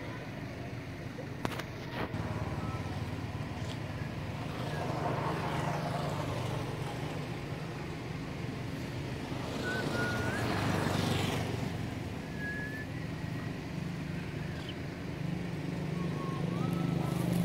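Low engine hum of motor vehicles, swelling twice as they pass and growing again near the end, with a couple of sharp clicks near the start and a few short high chirps.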